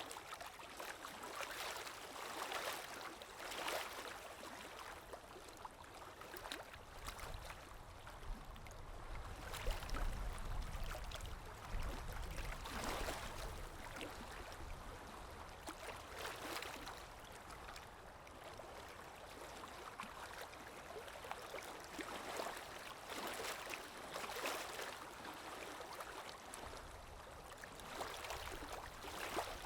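Sea waves breaking and washing ashore, swelling and easing every few seconds, with a deeper rumble from a larger wave about a third of the way in.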